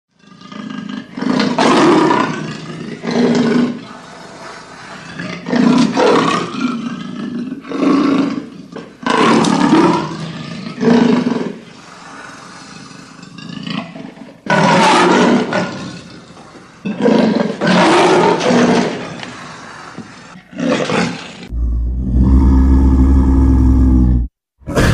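Leopard roaring and snarling in a series of harsh calls, each about a second long, separated by pauses of one to three seconds. Near the end a different, deeper rumbling sound with a strong steady low hum takes over for about three seconds and stops abruptly.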